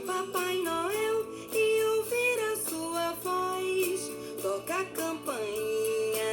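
A Christmas song playing: a melody sung by a singing voice over instrumental accompaniment with a steady beat.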